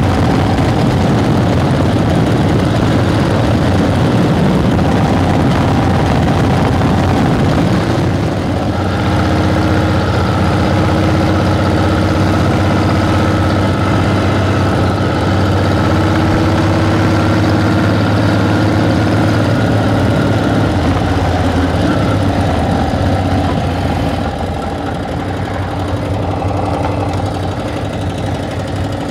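Harley-Davidson flathead motorcycle engine running as the bike is ridden up a steep hill, pulling under load. About eight seconds in the sound changes to a steadier engine note, and it drops a little in level near the end.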